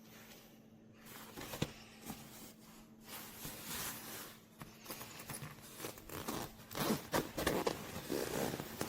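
A backpack being handled: fabric rustling and scraping with zipper runs, irregular strokes that get busier and louder in the second half.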